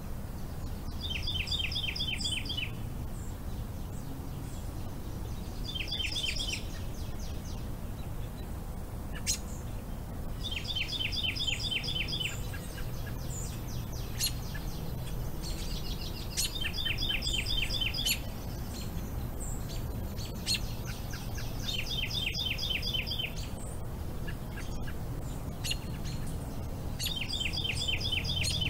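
A songbird singing short phrases of a dozen or so rapid, evenly repeated notes, each phrase lasting about a second and a half and coming again every four to five seconds, over a low steady rumble.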